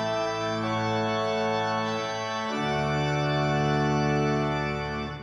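Organ playing slow, held chords that change twice, the last with a deeper bass, then released at the end.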